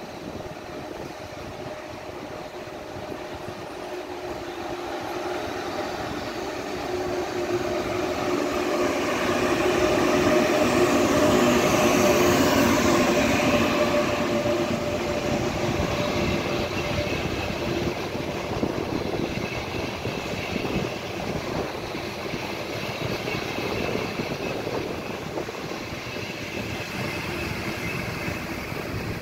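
Frecciarossa high-speed electric train pulling into a station. It grows louder as it approaches and is loudest as the front car passes, about twelve seconds in. Its carriages then keep rolling past as it slows to a stop, with a steady whine over the rumble.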